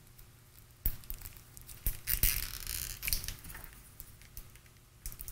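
Yellow insulating tape on a small transformer crinkling and tearing as it is peeled back by hand, in several short spells with a few sharp clicks.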